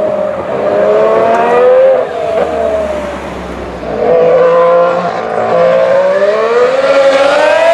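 Formula 1 car's V6 turbo engine at full race speed. The engine note falls and dips about two seconds in, then climbs steadily as it accelerates, and drops suddenly right at the end as it shifts up a gear.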